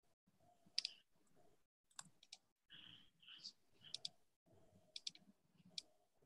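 Faint computer clicking over an open call microphone: sharp clicks, single and in quick pairs about a second apart, like a mouse being clicked, over a faint background hum.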